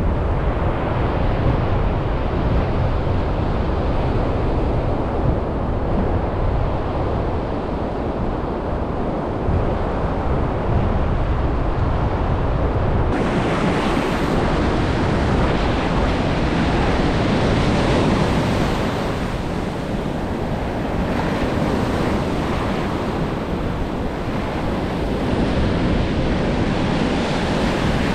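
Ocean surf breaking and washing up a sandy beach, with wind buffeting the microphone. About halfway through, the wash becomes brighter and closer.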